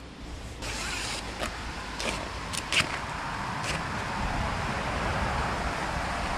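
A trail camera's nylon mounting strap and buckle being worked around a tree trunk: a brief rustle, then a handful of sharp clicks and scrapes over a steady hiss of wind and handling on the microphone.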